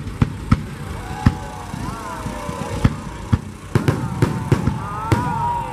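Fireworks display: aerial shells bursting in an irregular string of sharp bangs, about a dozen, with long sliding whistle-like tones running under them.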